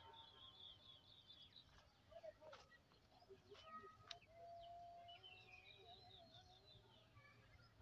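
Faint chirping of small birds: quick runs of high chirps near the start and again about five seconds in, with a few sharp clicks in between.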